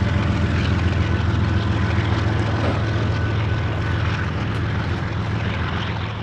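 Steady low rumble of a departing loaded coal train, its diesel locomotives humming over the noise of the wagons on the rails, starting to fade near the end.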